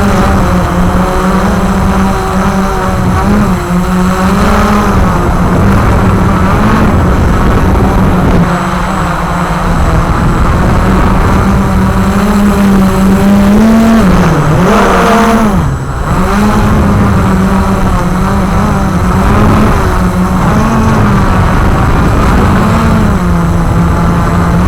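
Walkera QR X350 Pro quadcopter's motors and propellers buzzing in flight, the pitch wavering up and down, with a sharp dip and recovery about fifteen seconds in.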